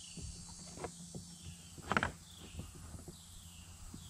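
Faint pondside insect chorus: a steady high buzz with a short falling chirp repeating about once a second. A few light knocks, the loudest about two seconds in.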